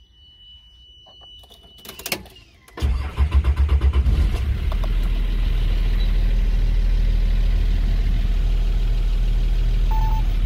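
Nissan Safari Patrol's TD42T 4.2-litre turbo-diesel straight-six being started: a couple of clicks about two seconds in, then the engine cranks and fires a little before three seconds, pulsing unevenly for about two seconds before settling into a steady idle.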